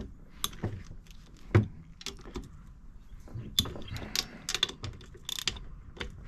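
Scattered metallic clicks, clinks and knocks of tools and engine parts being handled on a workbench, with one sharper knock about a second and a half in and a quick run of clicks in the middle.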